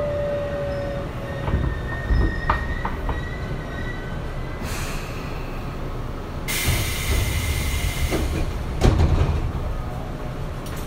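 Tobu 9050 series electric train with Toyo GTO-VVVF traction control, coming to a stop in a station. A falling motor whine dies out about a second in, followed by a high brake squeal and a few clunks as it halts. A loud hiss of compressed air starts about six and a half seconds in.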